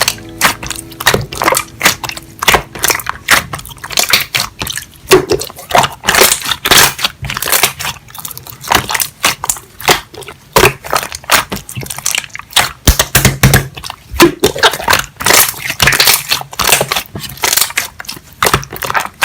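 Slime being squished and kneaded by hand, with a quick, irregular run of crackles and pops from the air pockets.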